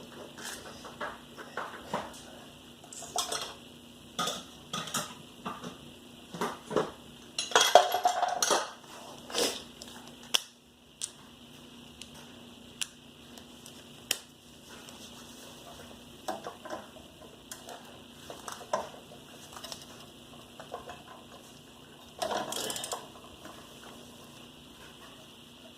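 Metal hand tools clinking and knocking as a socket and wrench are worked on the rear brake caliper bolts, in scattered single clicks with two louder clattering spells, about eight seconds in and near the end.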